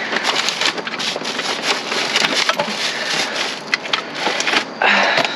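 Rummaging through discarded packaged groceries: a dense run of crackling, rustling packaging with quick knocks and clatters as items are moved about.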